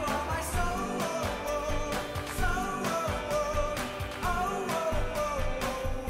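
Background music: a pop song with a singing voice over a steady beat.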